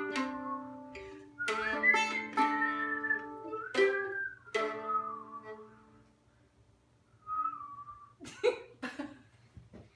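Two people whistle a tune in unison over strummed mandolin chords. The music fades out about six seconds in, followed by a brief faint whistle and a few short sounds near the end.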